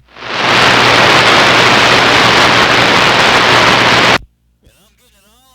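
CB radio receiver on AM channel 28 putting out loud, steady static hiss with a low hum underneath, cutting off suddenly about four seconds in.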